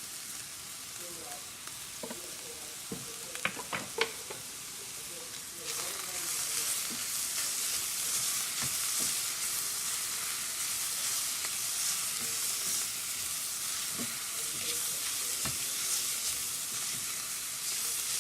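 Chopped vegetables sizzling in a pan while being stirred, with a few sharp knocks about three to four seconds in. The sizzle gets louder a little before six seconds in.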